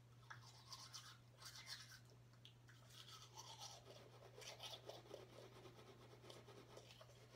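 Manual toothbrush scrubbing teeth, faint quick scratchy bristle strokes that keep going in an uneven rhythm.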